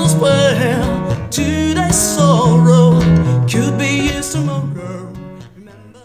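A song played back through Polk Audio R700 floor-standing speakers, fading out over the last couple of seconds.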